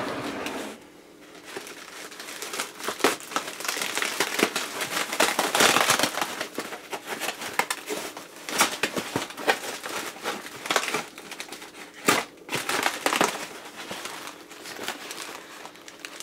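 Thin foam packing sheet being pulled off a sewing machine and crumpled by hand: continuous, irregular crinkling and crackling, busiest in the middle, with one sharp crackle about twelve seconds in.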